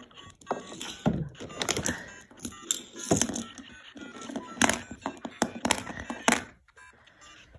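Knocks and clatter of toy handling, with electronic music and jingle-like sound effects from the small built-in speaker of a LEGO Super Mario interactive figure.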